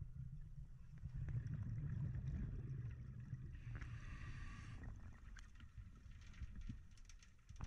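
Underwater rumble of water moving past a diver's camera. About halfway through comes a roughly one-second gush of scuba exhaust bubbles from the diver's regulator, and a few light clicks follow near the end.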